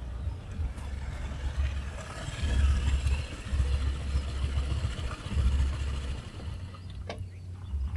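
Wind buffeting the microphone outdoors, a low rumble that comes and goes in gusts with a faint rustling hiss above it; a single sharp click near the end.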